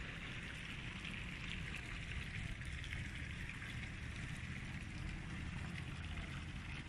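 Steady outdoor background noise: an even low rumble with a soft hiss, and no distinct events.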